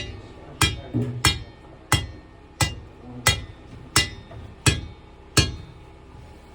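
Steady series of hard metal-on-metal strikes, about three every two seconds, each ringing briefly, as of a hammer hitting steel; they stop about a second before the end.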